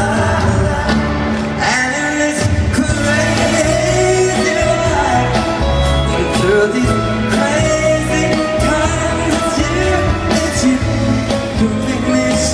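Live pop band with piano, guitars, bass and drums playing an upbeat song, with singing over it, heard through a handheld recording from the audience in an arena.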